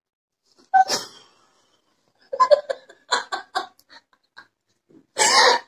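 A woman laughing: a short sharp cry about a second in, then a run of short laughs at about four a second, and a loud breathy burst near the end.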